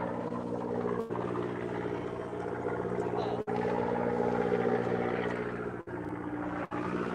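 Fishing boat's engine running with a steady, even drone.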